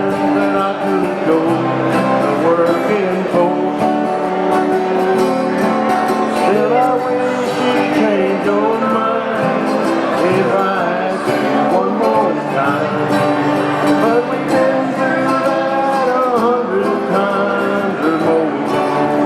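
Acoustic guitars playing a country-folk song live.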